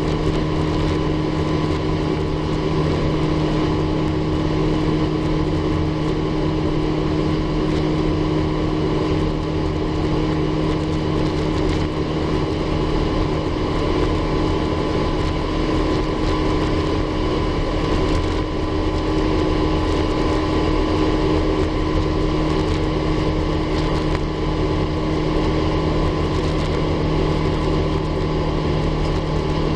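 Airbus A350-900's Rolls-Royce Trent XWB engines droning steadily, heard from inside the passenger cabin, with several constant hum tones over an even rush of noise.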